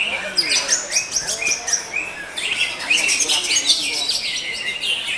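Caged greater green leafbird (cucak hijau) singing a fast, unbroken stream of varied high chirps and trills.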